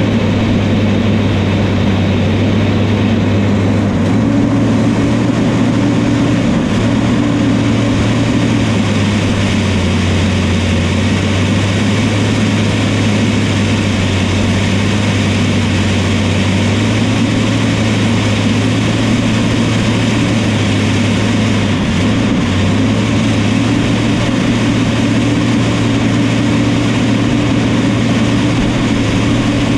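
New Holland crawler dozer's diesel engine running at high throttle, its pitch shifting up and down a few times.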